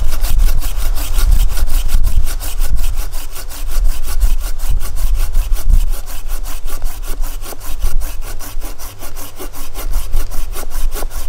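Bahco Laplander folding saw cutting through a sweet gum branch with rapid, even back-and-forth strokes. This saw's teeth cut on both the push and the pull.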